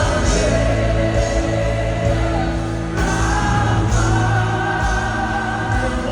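Live gospel worship music: a choir singing long held notes over a band with a strong, steady bass.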